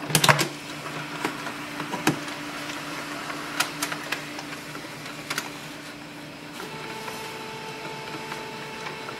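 HP LaserJet Tank 2504dw laser printer starting up after being switched on: a click, then its motors run with a steady hum and scattered clicks, the hum shifting to a higher pitch about six and a half seconds in.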